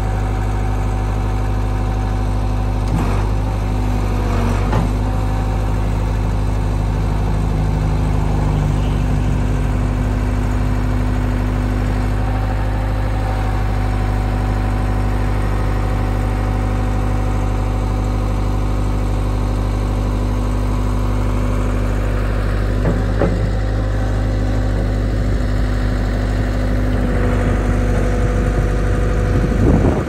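Ford 555C backhoe loader's diesel engine running steadily while the backhoe boom and bucket are worked hydraulically, with the pitch of the drone shifting as the controls are moved. There are a few short clunks, one about three seconds in, one near five seconds, one a little past twenty seconds and one at the very end.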